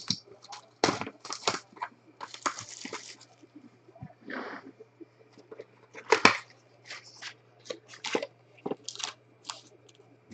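Foil wrappers of Topps Gold Label trading-card packs being handled and torn open: irregular crinkling, tearing and rustling, with the loudest crackle about six seconds in.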